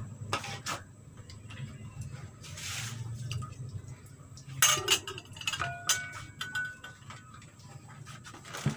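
Stainless ladle clinking and knocking against a wok while stirring broth, as a few scattered clicks over a low steady hum, with one louder clatter about halfway through.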